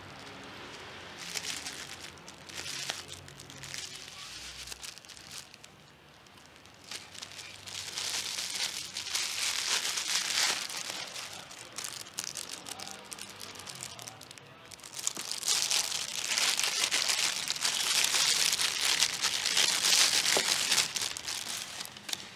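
Bubble wrap and a thin plastic bag crinkling and rustling as they are handled and pulled off a camera lens. The crinkling comes in several spells and is loudest from about eight to eleven seconds in and again from about fifteen to twenty-one seconds in.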